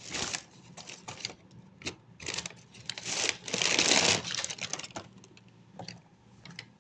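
Paperboard takeout boxes being handled: short rustles and light taps, with a louder, longer rustle about three to four seconds in.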